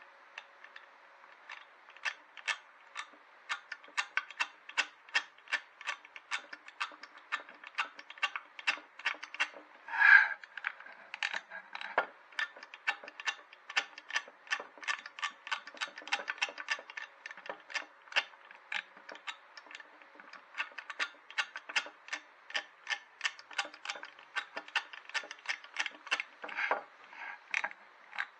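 1979 Vespa P200E's oil injection pump clicking as its drive shaft is turned by hand during a bench test of whether it pumps oil, about three clicks a second. One louder squeak comes about ten seconds in.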